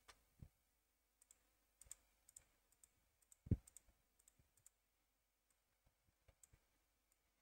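Faint, scattered computer mouse clicks, with one louder low thump about three and a half seconds in.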